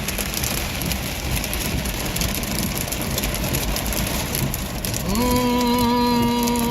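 Rain and water noise heard from inside a vehicle driving through floodwater. About five seconds in, a steady humming tone starts, rising briefly and then holding.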